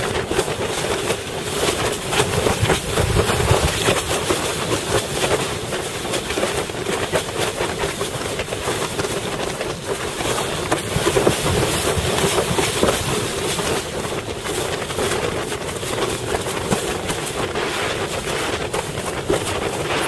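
Wind buffeting a helmet-mounted camera's microphone while a windsurf board runs over choppy water, its hull slapping the chop in rapid, uneven knocks over the rush of water.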